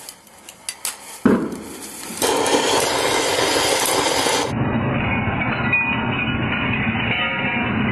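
Diwali anar (fountain firework) burning with a loud, steady rushing hiss of spraying sparks, preceded by a few crackles and a sharp crack about a second in.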